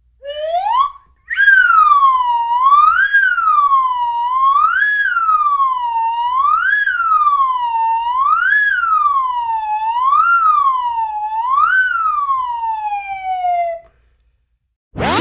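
A siren wailing: one tone gliding up and falling back about every second and three quarters, after a short rising start. It ends in a long fall and stops about 14 seconds in.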